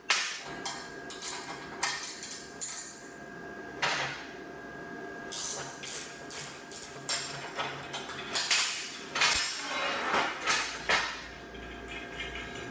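Irregular metallic knocks and clanks of steel being handled and struck during fabrication work, some sharp and some softer, over a faint steady tone.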